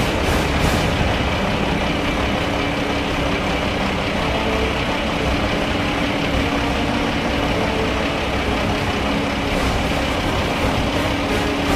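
Heavy diesel farm machinery running steadily, with a constant low hum.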